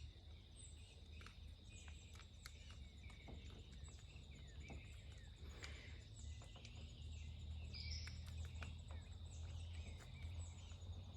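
Faint outdoor ambience: a steady high insect-like drone with repeated short high chirps, a low steady rumble and a few light clicks.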